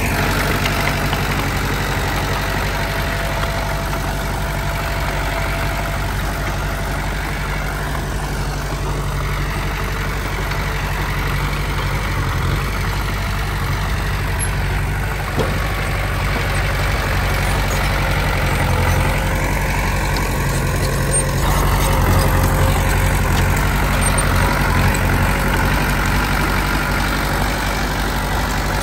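Heavy diesel engine of earthmoving machinery running steadily, with a single sharp knock about fifteen seconds in and the engine getting a little louder about twenty-one seconds in.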